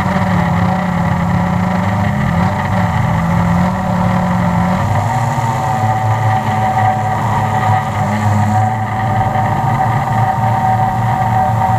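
Multirotor drone's electric motors and propellers buzzing steadily in flight, picked up close by a camera mounted on the drone. The low hum wavers slightly in pitch now and then as the motors adjust their speed.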